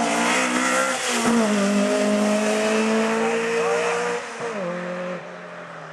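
Historic rally car passing close at speed, then accelerating away. The engine note climbs through the revs, with gear changes about one second in and about four seconds in. Loudest with tyre and road noise as it passes at the start, then fading as it drives off.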